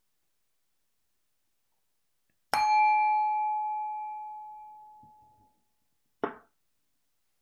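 A meditation bell struck once, ringing with a clear tone and several overtones that fade away over about three seconds. A brief knock follows near the end.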